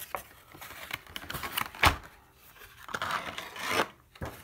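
Clear plastic packaging crinkling and scraping as it is handled to free the model locomotive from its tray, with one sharp click about two seconds in.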